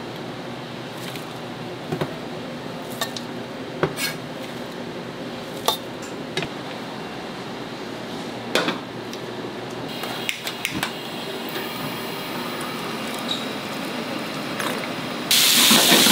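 Restaurant kitchen work: scattered clinks and knocks of dishes and utensils over a steady background noise, then a loud hiss starting suddenly near the end.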